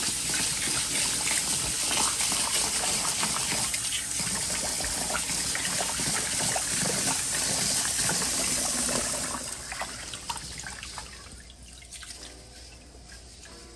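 Kitchen faucet running into a stainless steel bowl of rice while a hand swishes and rubs the grains in the water: the last rinse to wash the cloudy starch off the rice. About nine and a half seconds in the flow drops to a thin trickle and the water sound gets much quieter.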